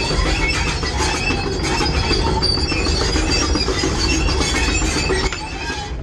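Steel undercarriage of a tracked logging machine squealing and screeching as it moves, heard inside the cab over the steady rumble of its diesel engine, easing slightly near the end. The squeal is the dry track chain grinding on its rails and rollers, with no mud to lubricate it.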